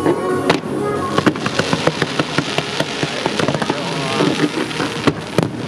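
Fireworks firing in quick succession: a dense run of sharp cracks and pops from fans of rockets launched off the harbour water, with one louder bang near the end.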